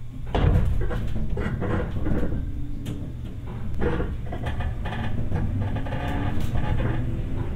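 Inside a JR 211 series 3000 electric train: a run of clunks and knocks over a low rumble, then from about five seconds in the MT61 externally ventilated traction motors start a slowly rising whine as the train pulls away and accelerates.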